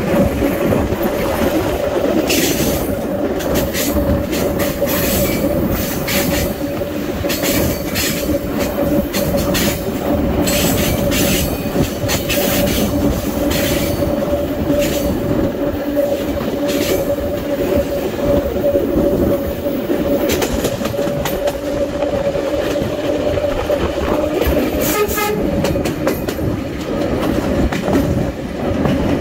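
SuperVia Série 700 electric train running at speed: a steady two-note hum under the rumble of the wheels, broken by short clicks and clatter as the wheels pass over rail joints, most of them in the first half and a few more near the end.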